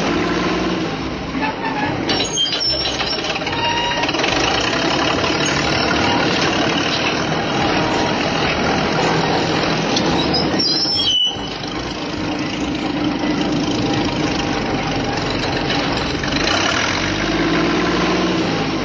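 Vehicle engine noise running steadily, broken by two abrupt cuts about two and eleven seconds in.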